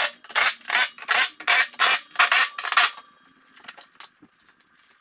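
Cordless impact wrench hammering in a quick series of short bursts, tightening the bolts of a snow-plow blade's scraper bar. The bursts stop about three seconds in, leaving a few small clicks, and one more burst comes at the very end.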